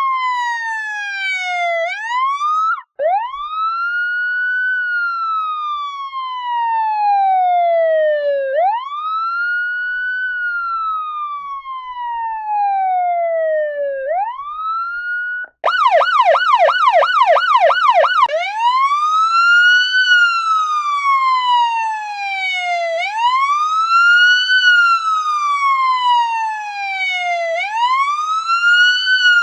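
Police siren in a wail, each cycle rising quickly and falling slowly over about five seconds. About halfway through it switches briefly to a fast yelp of about three sweeps a second, then goes back to the wail. It cuts out for an instant twice.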